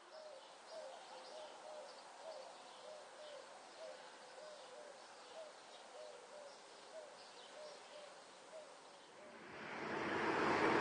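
A bird repeating a short, low hooting note about twice a second, with faint high chirping above it. Near the end, a rising rush of noise from an approaching train.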